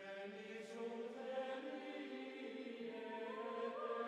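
Faint choral background music: held, chant-like voices sustaining a chord that slowly grows louder, with one line stepping up in pitch about three seconds in.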